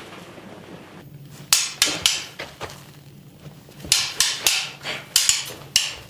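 Swords clashing in a staged sword fight: about ten sharp metal strikes in quick clusters, starting about a second and a half in.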